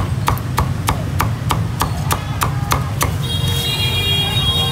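Cleaver chopping crispy roast pork on a thick wooden chopping block, a quick, even run of sharp chops at about three a second that stops about three seconds in. A high steady horn sounds near the end, over a constant background rumble.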